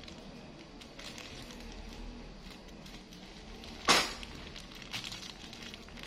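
A thin plastic bag crinkling and rustling as a small monkey's hands pull at it, with scattered light crackles and one sharp, louder crack about four seconds in.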